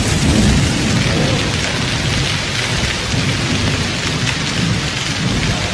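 Pebble-sized hailstones and heavy rain pelting down in a dense, steady patter, with a strong low rumble underneath.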